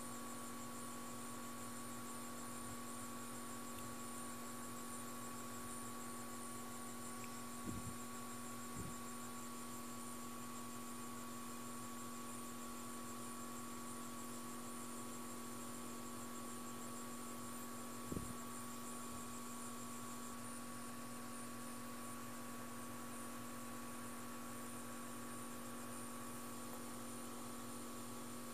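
Steady electrical hum with a constant low tone and a thinner higher one, and a few soft low thumps: two close together about eight seconds in and one around eighteen seconds in.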